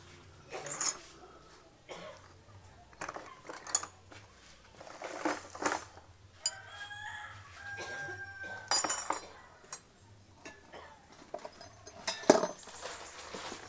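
A rooster crows once, a drawn-out call in the middle, over intermittent scrapes and rustles of milled rice being scooped and poured in metal basins. The loudest of these comes about nine seconds in and again near the end.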